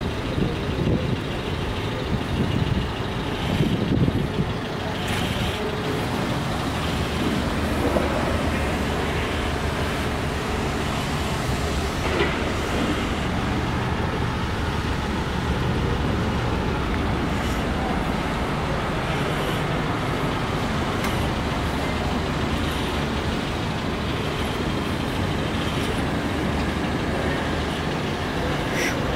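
Steady low rumble of a motor vehicle engine running, with a few irregular bumps in the first few seconds.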